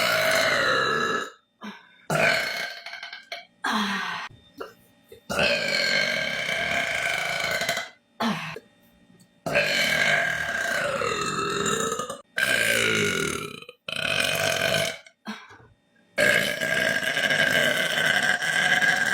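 A series of long human burps, about eight in a row with short gaps between them, each lasting one to three seconds; several slide up or down in pitch.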